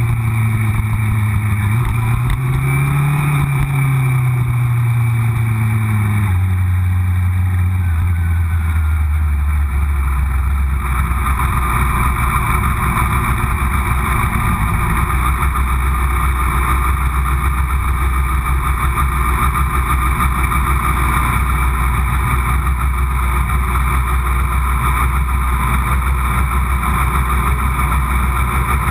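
Yamaha R6 race bike's inline-four engine running at low revs, its pitch rising and falling a little in the first few seconds as the bike rolls slowly, then settling into a steady idle about six seconds in.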